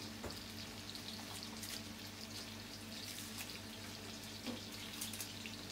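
Ginger and galangal sizzling gently in coconut oil in a pot, a faint, even crackle of soft frying on low heat, over a steady low hum.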